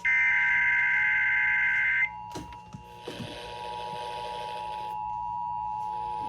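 Emergency Alert System SAME header: a shrill two-tone digital data burst lasting about two seconds that cuts off suddenly. After it, the steady two-tone EAS attention signal carries on with a hiss and grows louder from about three seconds in, announcing a new alert.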